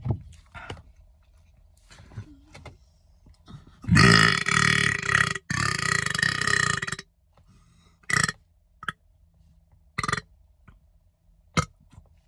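A man's long, loud belch of about three seconds, starting about four seconds in, with a brief break near the middle. It is forced after a drink.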